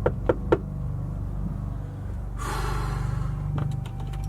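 Knuckles knocking rapidly on a front door, the last three knocks in the first half-second, over a low steady hum. A short rushing, breath-like noise follows about two and a half seconds in.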